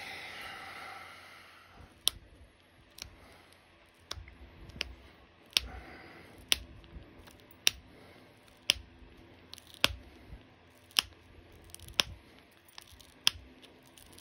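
Copper-tipped pressure flaker snapping small pressure flakes off the edge of an opalite arrowhead: a dozen sharp clicks, roughly one a second.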